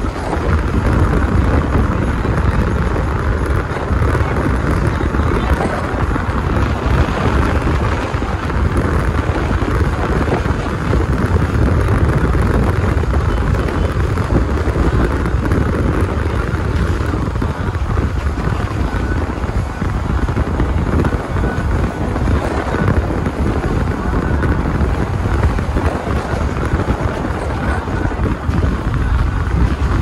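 Steady road and wind noise of a car driving, rumbling most at the low end, with no separate events standing out.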